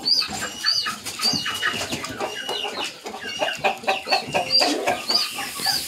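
Chickens clucking, with a short high-pitched chirp repeating about twice a second.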